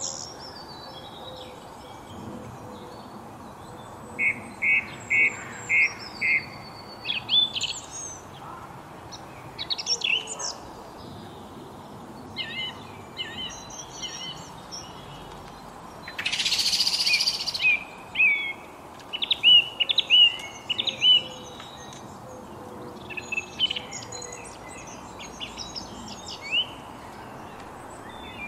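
Several songbirds chirping and whistling in short phrases, with a run of four quick repeated notes about four seconds in, over a steady background hiss. About halfway through, a loud harsh hiss lasts a second or two.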